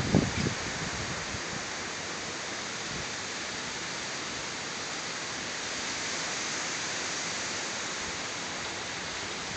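Hurricane Irene's wind blowing steadily through trees: an even rush of tossing leaves and branches, not rain, swelling a little about two-thirds of the way through. Low wind buffets on the microphone fade out in the first half second.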